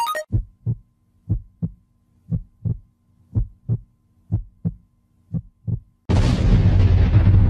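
Heartbeat sound effect: six double lub-dub thumps about a second apart over a faint low hum, after a brief electronic blip at the start. About six seconds in, a loud steady rumbling noise starts abruptly.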